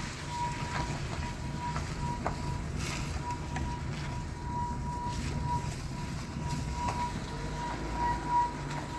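Rear drum brakes of a Peugeot 207 whistling while the car drives forward: a thin, high steady tone that swells and fades in short pulses over the low rumble of road and tyre noise. This "singing drums" whistle is a fault that appears only when moving forward, never in reverse.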